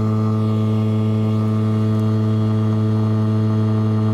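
Yamaha 3 hp two-stroke outboard motor running steadily at one even pitch, pushing the inflatable boat on the plane at about 22 km/h.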